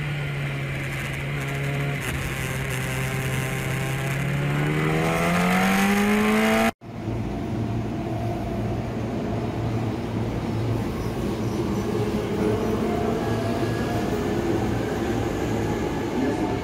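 An engine revving up, its pitch climbing steadily, that cuts off abruptly about seven seconds in. Then a Hankyu electric commuter train beside the platform, giving a steady rumble and low hum.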